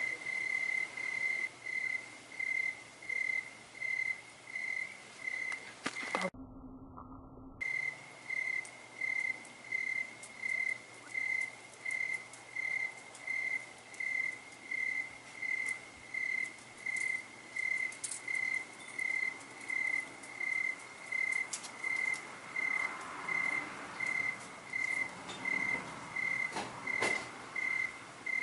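A cricket chirping at night: one short, steady, high-pitched chirp repeated at an even rhythm, a little under twice a second.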